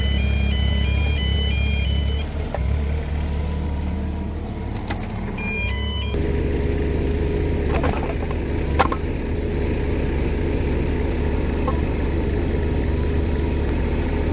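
Small excavator's engine running steadily, with an electronic beeping that alternates between two pitches in the first couple of seconds and again briefly around six seconds in. A couple of sharp knocks come around eight to nine seconds in.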